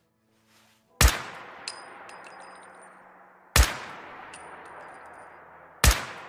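Rifle sound effect: three single shots about two and a half seconds apart, each with a long echoing tail. After each of the first two shots comes a short run of light metallic clinks with a high ringing tone.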